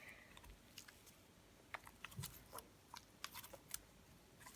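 Faint, scattered small clicks and sticky pops from hands kneading and stretching freshly made glitter slime that is still sticky.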